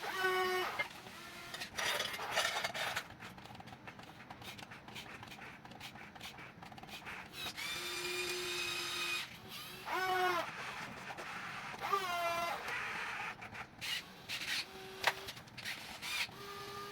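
Huina 1550 remote-control excavator's small electric motors whining in short bursts, the pitch bending as each one starts, with one longer steady whine and light clicking and rattling between bursts.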